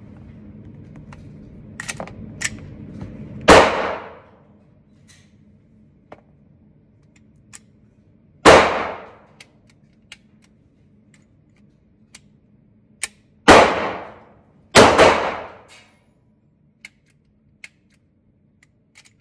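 FMK 9C1 Gen 2 9mm pistol firing: four shots a few seconds apart, the last two about a second apart, and a fifth right at the end, each ringing off the walls of an indoor range. Light clicks fall between the shots. The pistol is failing to extract its spent cases.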